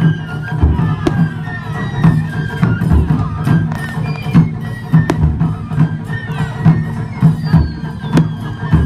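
Taiko drums beating a steady rhythm, with sharp firework cracks every second or two, high whistling tones gliding downward, and crowd noise.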